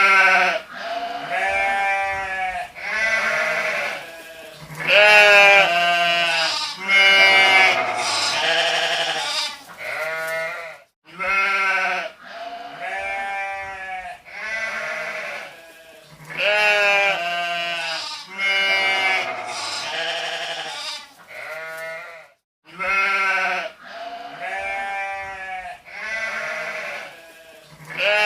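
Sheep bleating, one call after another of about a second each with short gaps between them. The run of bleats seems to start over about every eleven seconds.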